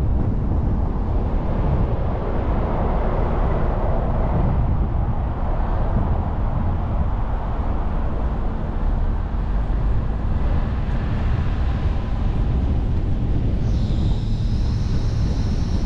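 Car driving at highway speed: steady tyre and wind noise. About fourteen seconds in, a high-pitched whine of several close tones joins it.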